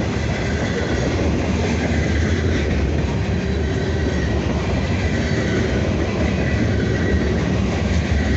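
Norfolk Southern freight train rolling past, a steady loud rumble and clatter of wheels on the rails.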